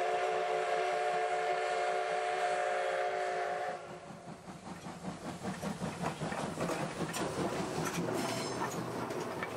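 Steam whistle of the C57 180 steam locomotive held on a steady multi-tone chord, cutting off abruptly about four seconds in. The locomotive's rhythmic exhaust chuffing and the train's running clatter follow.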